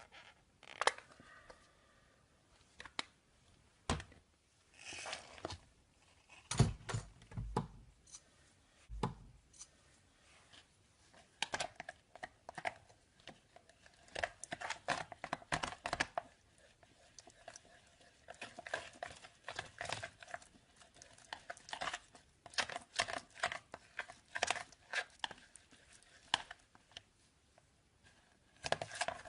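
Slime being squeezed and played with: irregular crackling and popping clicks in clusters, with a few soft, heavier squelches about seven to nine seconds in.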